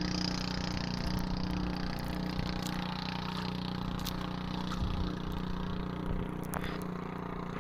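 A small boat engine running steadily, a constant low drone that neither rises nor falls, with wind and water noise and a few faint knocks.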